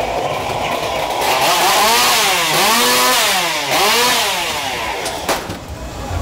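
Chainsaw engine revving up and down several times, its pitch rising and falling with each rev, over the steady rumble of the ride car; a sharp bang a little after five seconds in.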